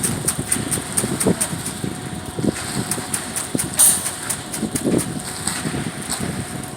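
Concrete truck's diesel engine running, with a fast regular ticking about five times a second and a brief sharp hiss-like noise about four seconds in.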